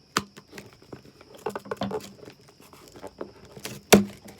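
Packing material crinkling and rustling as a wrapped mug is unpacked by hand, with scattered sharp clicks and knocks: one loud knock just after the start and the loudest near the end.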